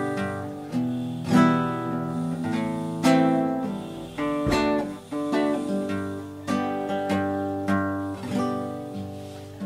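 Background music on acoustic guitar: chords struck one after another, each ringing out and fading.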